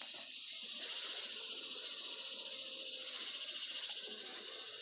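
Steady, high-pitched hiss of an insect chorus, with a faint fast trill running through it.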